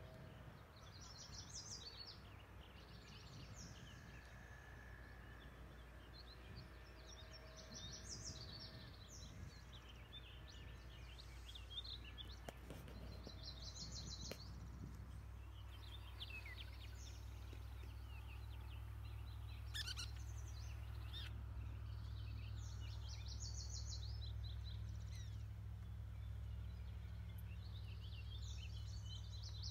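Songbirds singing: short, high, trilled phrases repeat every few seconds over a low steady rumble that grows stronger about halfway through.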